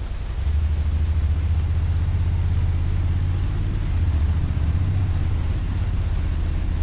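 Honda NC750S motorcycle's parallel-twin engine running with a steady low rumble and wind noise, getting a little louder about half a second in as the bike pulls on.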